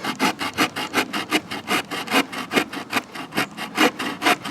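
Small folding saw blade of a Victorinox Swiss Army knife sawing into a log, with quick, even back-and-forth strokes, about six or seven a second.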